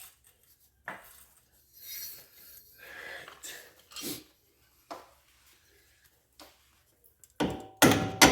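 Scattered clinks, taps and scrapes of metal tools and parts being handled, then a few loud metal clanks near the end, the last one leaving a short ringing tone.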